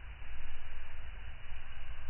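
Fire burning in a fireplace: a steady rushing noise with a low rumble.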